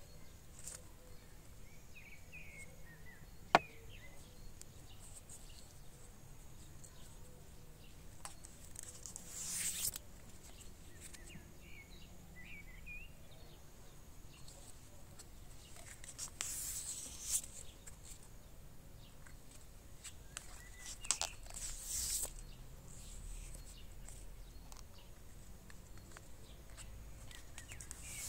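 Plastic grafting tape rustling and crinkling in short bursts as it is stretched and wound around a pear branch, with one sharp snip of small scissors a few seconds in. Birds chirp faintly now and then.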